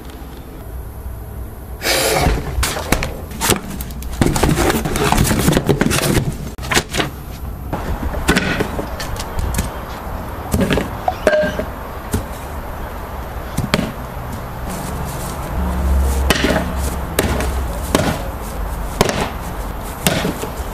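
A string of loud, irregular bangs, cracks and clatters, like wooden boards and cardboard being struck and broken. The hits come thick and fast for the first several seconds, then more spaced out.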